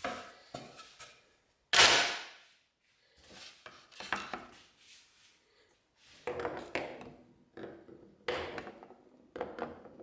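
A series of irregular knocks and thumps, one every second or so, with short pauses between them; the loudest comes about two seconds in and rings on briefly.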